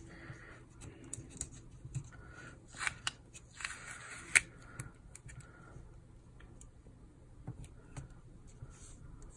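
Paper stickers and planner pages being handled: soft rustling and scraping with small taps as stickers are pressed onto the page, and one sharp click about four seconds in.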